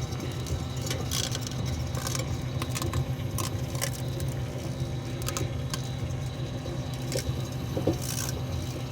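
Microwave oven running with a steady low hum, with irregular crackles and snaps from the metallised EMF beanie arcing inside it.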